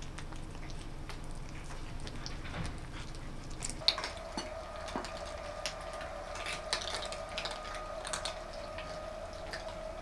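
A cat chewing a piece of chicken breast held in a hand. About four seconds in, this gives way to a dozen cats eating from metal bowls: scattered light clicks and clinks of food and tongues against metal, over a steady hum.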